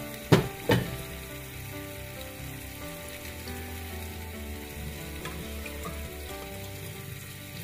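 Squid adobo sizzling and simmering in a frying pan as broth is ladled in from the pot. Two sharp knocks near the start, the ladle striking the cookware.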